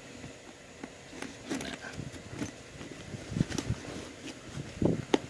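Small clicks and rustles of a zipper being handled as its repaired slider, just crimped with nail clippers, is tried along the teeth.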